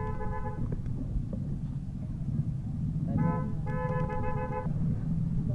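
Vehicle horn honking: one note cuts off about half a second in, then a short toot and a longer blast of about a second come around three to four seconds in, over a steady low rumble.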